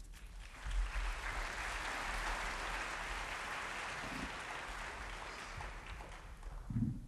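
Audience applauding, swelling about a second in and gradually fading away; a short low thump near the end.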